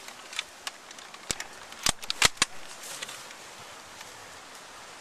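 A string of irregular, sharp airsoft gun cracks, about eight in all, the loudest pair about two seconds in.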